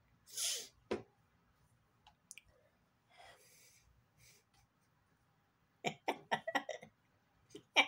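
A man's breathy exhale near the start, then a quick run of short, stifled chuckles about six seconds in, with another near the end.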